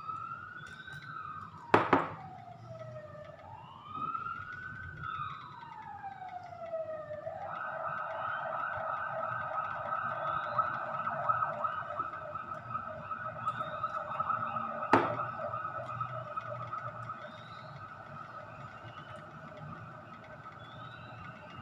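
A siren wailing in slow rises and falls, then switching about seven seconds in to a fast warble that fades away over the last few seconds. Two sharp clicks stand out, one about two seconds in and one about fifteen seconds in.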